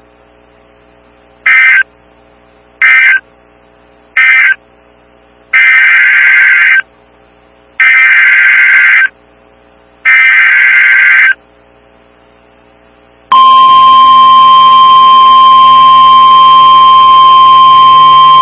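NOAA Weather Radio EAS/SAME digital data bursts: three short end-of-message bursts, then three longer header bursts that announce the next warning. About 13 seconds in, the steady 1050 Hz weather-radio warning alarm tone starts.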